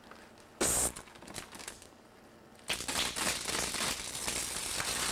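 Nylon tent fabric crinkling and rustling as a black bear tugs at the bottom edge of a screen tent. There is a short sharp rustle about half a second in, then steady crinkling from about halfway.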